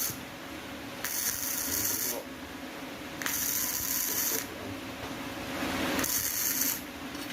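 Steel being worked in three separate bursts of harsh hissing, each about a second long, with short pauses between them.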